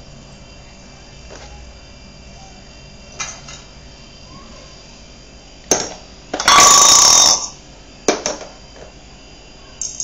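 Small stainless-steel pots and a tumbler knocking and clinking together, with a loud ringing metal scrape lasting about a second past the middle.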